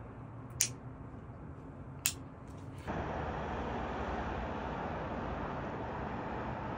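Two sharp clicks of a disposable lighter being struck, then from about three seconds in a steady hum of distant city traffic.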